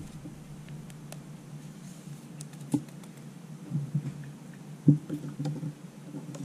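Trading cards being handled and flipped through by hand: scattered light clicks and rustles, with a few sharper ticks, over a steady low hum.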